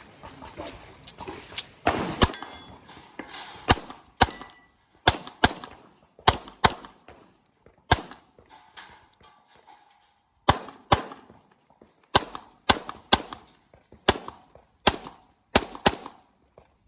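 Handgun shots fired in quick pairs and short strings, about twenty in all, with a pause of about two seconds in the middle.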